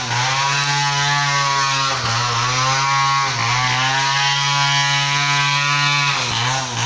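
Stihl chainsaw running at high speed while cutting timber, its engine note dipping briefly about three times as the chain bites and then recovering.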